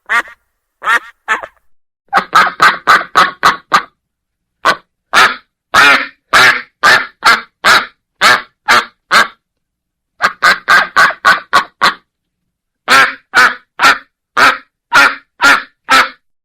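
Domestic duck quacking: runs of short, harsh quacks, some quick at about five a second, others slower at about two a second, with short pauses between runs.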